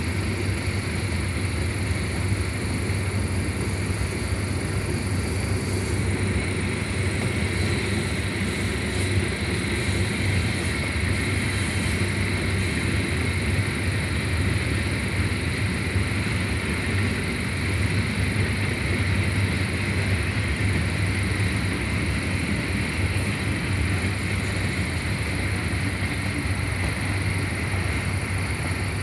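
Freight train rolling past: a steady low rumble with a rushing noise over it.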